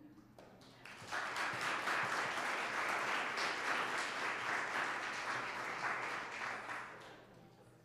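Audience applauding: many hands clapping together, swelling about a second in and dying away near the end.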